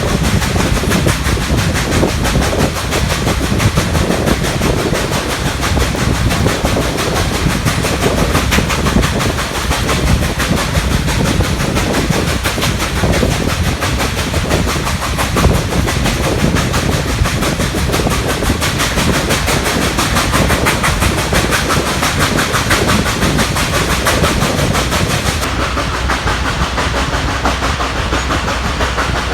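Nickel Plate Road 765, a 2-8-4 Berkshire steam locomotive, working hard up a steep grade: a fast, steady run of exhaust beats with the clatter of the train rolling on the rails.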